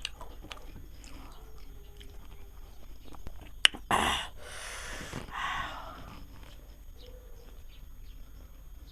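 A person chewing and eating, with small mouth and eating clicks. A sharp click comes about three and a half seconds in, followed by two short rushes of noise.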